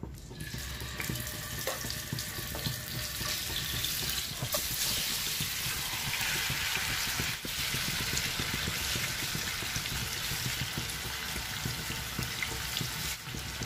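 Masala-marinated chicken pieces sizzling in hot oil in a nonstick frying pan. The sizzle gets louder about four to six seconds in, as more pieces are tipped in from a bowl, and a few light clicks of the spoon can be heard.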